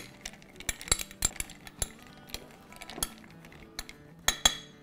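Metal spoon stirring chocolate melting wafers in a glass Pyrex measuring cup, clinking and knocking against the glass in irregular taps, over background music.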